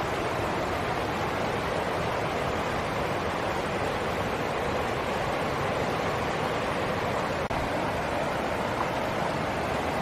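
Rocky stream rushing over a small cascade between boulders: a steady, even rush of flowing water.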